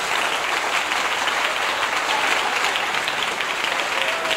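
Theatre audience applauding: many hands clapping in a steady, dense patter.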